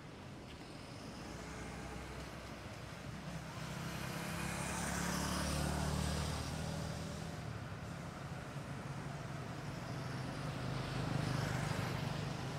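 Road vehicles driving past: the engine rumble and tyre noise of one swells to its loudest about six seconds in and fades, and a second vehicle passes near the end.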